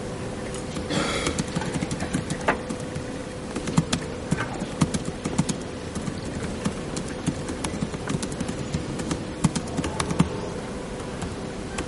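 Irregular footsteps and small knocks on a wooden stage floor as people move slowly about, over a steady hum and room noise.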